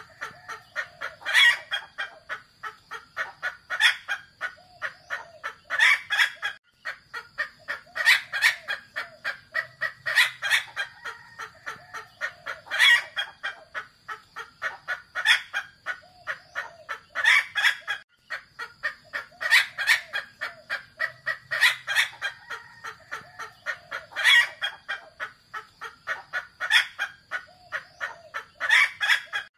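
Female Javan junglefowl calling: a rapid run of short clucks, with a louder call about every two and a half seconds, repeating evenly over and over. A steady high-pitched whine runs behind it, dropping out briefly now and then.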